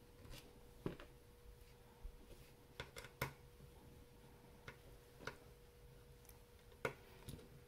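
Faint, irregular clicks and ticks of a small precision screwdriver working the screws out of a graphics card's metal backplate.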